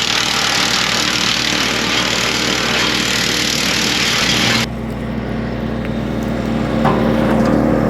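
Tractor-driven Woodmaxx WM8H PTO wood chipper running hard, a steady engine drone under a loud hiss. About halfway through the hiss cuts off suddenly, leaving the steady engine drone.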